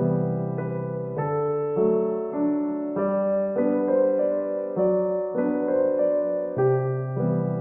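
Background music: a gentle solo piano piece with chords changing about every half second.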